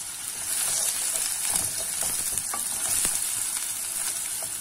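Chopped red onion sizzling in hot vegetable oil in a frying pan: a steady high sizzle with scattered light clicks and scrapes as it is stirred with a wooden spoon.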